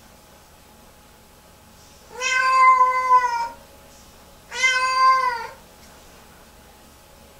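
Lynx point Siamese cat giving two long, loud meows, the first about two seconds in and the second a second later, each dropping in pitch at the end. These are the distressed calls of what the owner calls a post-bath meltdown.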